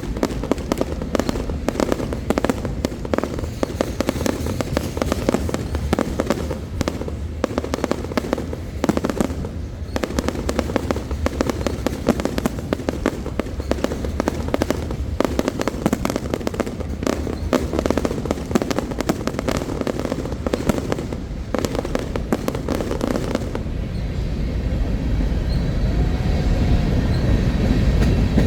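Fireworks going off in a dense barrage of bangs and crackling. After about 23 seconds the sharp hits thin out and a heavier low rumble takes over.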